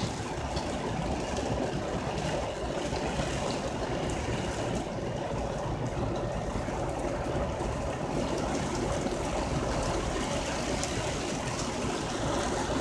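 Heavy rain pouring down steadily on a parked van, heard from inside it: an even, unbroken rush of water.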